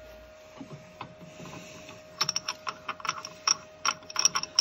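Light metal clicks and rattles as a freshly machined aluminium piston is handled and lifted out of a lathe chuck. The clicks come quick and irregular from about two seconds in, over a faint steady hum.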